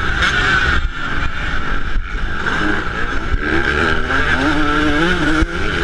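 Yamaha YZ125 two-stroke motocross engine running hard, its pitch rising and falling with the throttle, with brief throttle cuts about a second in, about two seconds in and near the end.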